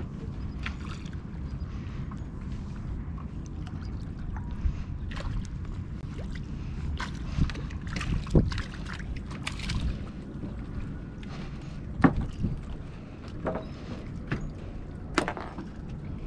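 Harbour water lapping around a wooden dock and moored boats, with wind on the microphone. Scattered short knocks and splashes break in, the sharpest about eight and twelve seconds in.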